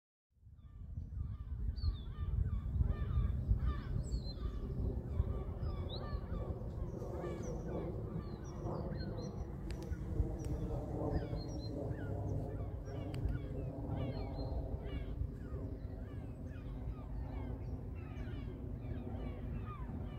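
KLM Embraer E175 jet airliner with GE CF34-8E turbofans on descent, a steady low rumble that fades in just after the start. Many birds call throughout over the rumble.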